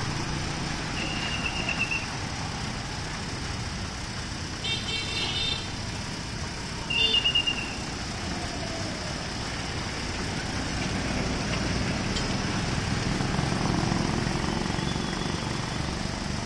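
Motorbikes running past on a rain-wet road over a steady hiss of rain and tyres. Short high horn toots sound about a second in and again around five seconds, and a quick burst of beeps follows at about seven seconds.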